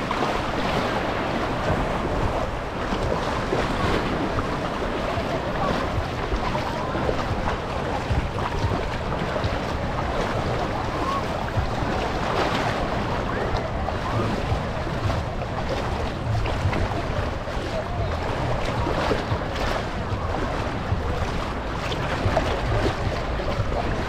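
Small waves lapping and washing in shallow water at the shoreline, close to the microphone, with a steady rumble of wind on the microphone.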